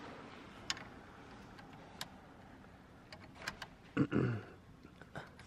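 Scattered small clicks and taps as a horn button and its trim ring are pushed and fiddled into a Nardi steering wheel's hub, the button not seating. About four seconds in, a brief grunt-like voice sound.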